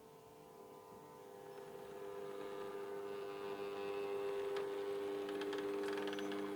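Model electric locomotive running on an O-gauge track: a steady motor hum growing louder as the train approaches. Sharp clicks from the wheels start about halfway in.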